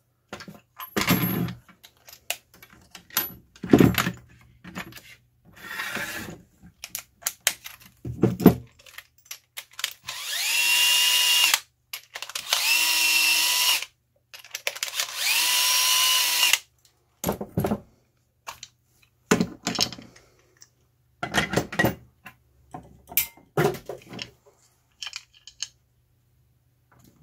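Power drill-driver with a hex socket backing out the housing bolts of a cast-metal coax tap. It makes three runs of about two seconds each, the motor's whine rising as each run starts. Before and after come scattered clicks and knocks of metal parts and the tool being handled.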